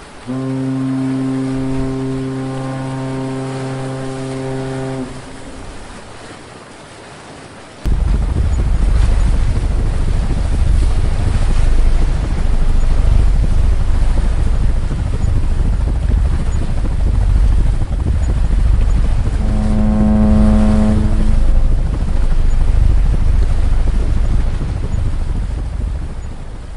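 A ship's horn sounds one long blast of about five seconds over the wash of sea waves. About eight seconds in, a loud, steady low rumble of wind and sea sets in abruptly and runs on, and a second, shorter and higher horn blast comes about twenty seconds in.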